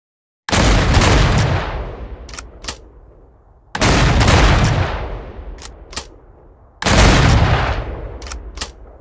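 Double-barrel shotgun sound effect: three loud shots about three seconds apart, each trailing off in a long echo, with two quick clicks between shots.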